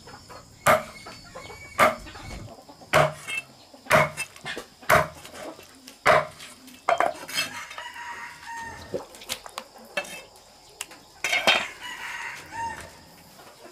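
Chopping knocks, about one a second through the first seven seconds, with chickens clucking and a rooster crowing in the background.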